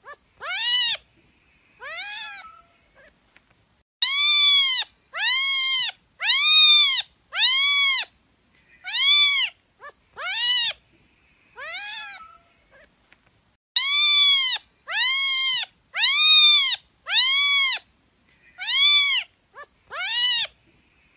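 A cat meowing over and over: about fifteen short meows, each rising and then falling in pitch. Some come in quick runs with short pauses between, and a few are fainter than the rest.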